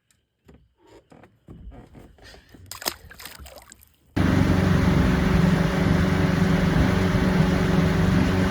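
A few faint clicks and knocks, then about four seconds in a motorboat's engine comes in suddenly and runs steadily and loudly, a droning hum over a constant hiss.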